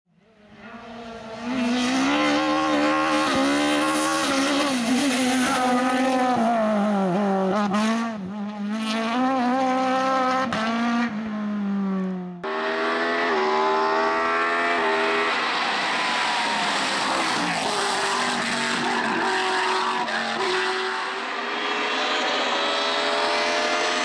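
Hill-climb race car engines at high revs, pitch climbing and dropping with gear changes. The sound fades in over the first couple of seconds, then cuts abruptly about twelve seconds in to another car accelerating hard up through the gears.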